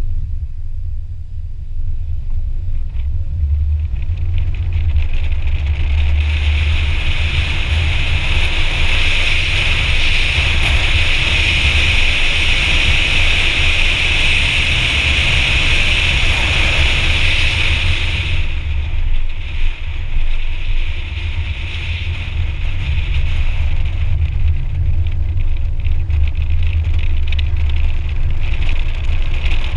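Wind buffeting and road noise of a Hyundai Accent on the move, picked up by a GoPro Hero 4 suction-cupped to the outside of the car: a steady low rumble throughout. A higher hiss swells about six seconds in and drops away about eighteen seconds in.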